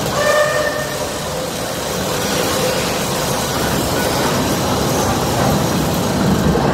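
Loud, steady roar of heavy ore-mill machinery played over loudspeakers in a mine-mill sound-and-light show. It starts abruptly, with a brief pitched tone on top in the first second.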